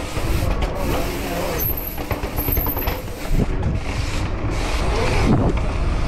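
Mountain bike rolling fast over city pavement: tyre rumble and wind buffeting the microphone, with street traffic around it.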